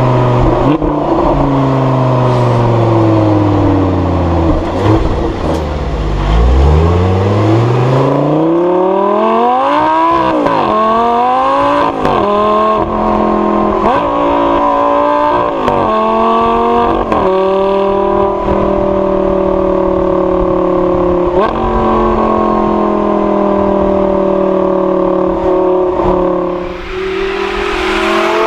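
Lamborghini Gallardo LP560-4's 5.2-litre V10 with its active exhaust valves open in Sport mode. The engine note falls away at first, then revs up hard. It climbs and breaks off sharply several times in quick succession, settles into a steady drone, and rises again near the end with a rush of noise.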